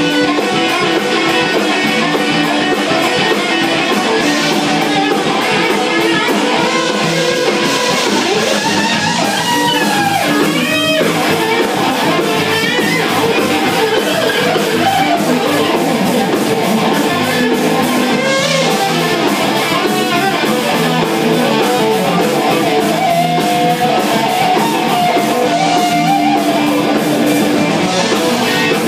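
Jam session music led by electric guitar: sustained and strummed guitar parts, with a few bent, wavering notes a third of the way through and again past the middle.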